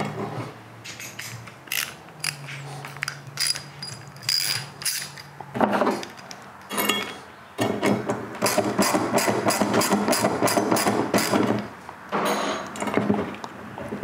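Hand socket ratchet clicking in short runs as a 9/16 nut is tightened onto a bolt, with a few clinks of metal tools; the clicking becomes a fast, steady run in the middle.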